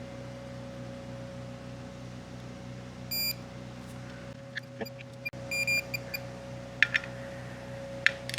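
Electronic beeps from a digital torque wrench as a steel Torx bolt is torqued into the aluminium rotor adapter to about 25 ft-lb: one beep about three seconds in, then a quick run of short beeps near the halfway mark, signalling that the set torque has been reached. There are a few sharp ratchet clicks around it, over a steady low hum.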